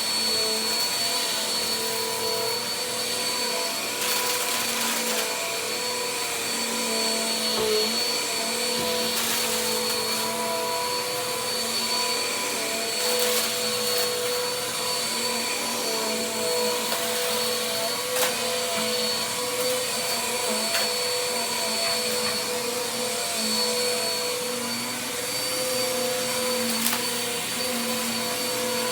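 Vacuum cleaner running steadily: a steady motor whine over a rushing airflow hiss, with a few faint ticks.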